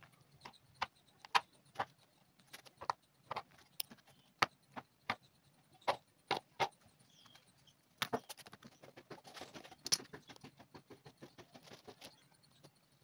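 Hand tools working over the bottom of a sandal to clear off what is left of its crumbled old sole: irregular sharp clicks and taps as a thin steel pick works along the edge, then from about eight seconds a faster run of scratching as the surface is scraped with a small blade.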